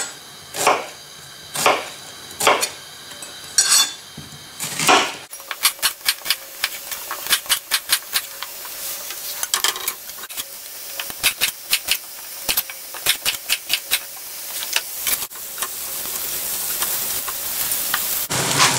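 A kitchen knife chopping an onion into large chunks on a cutting board, with about five knocks a second or so apart. Then onion pieces are scraped off the board into a hot frying pan of diced carrots: quick crackling and pattering, then a frying sizzle that grows steadily louder.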